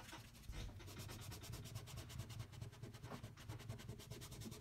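Cloth rubbing conditioner into a small piece of sanded vegetable-tanned leather: a faint, fast, even run of back-and-forth scrubbing strokes.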